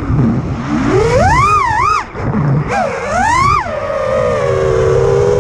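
FPV freestyle quadcopter's brushless motors whining, the pitch swooping up and down with the throttle, briefly cutting out about two seconds in, then settling to a lower, steadier whine, over rushing prop wash and wind.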